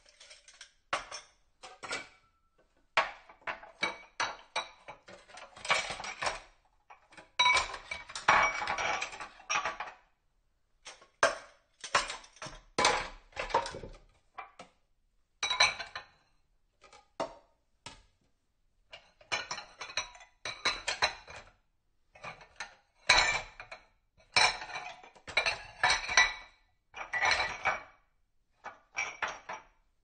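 Dishes and cutlery clinking and clattering against each other as they are washed, in irregular bursts of sharp knocks with short pauses between.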